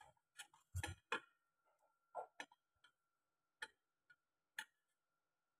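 Chopsticks and a metal spoon clinking and tapping against the inside of a stainless steel pot, about nine light, irregular clicks. Under them runs a faint steady high-pitched whine.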